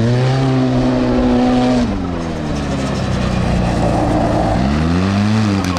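Turbocharged Z1-engined side-by-side revving hard under throttle while it slides on pavement. The engine note climbs and holds, drops off as the throttle is lifted about two seconds in, then builds again near the end.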